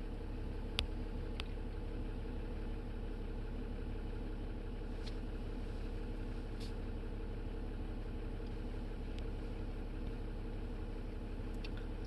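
Steady low hum of a car idling, heard from inside the cabin, with a few faint clicks.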